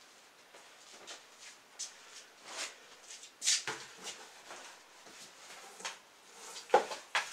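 Clothes rustling and a cardboard box being handled as garments are folded and taken out of it, in short irregular swishes with a few sharp knocks, the loudest two close together near the end.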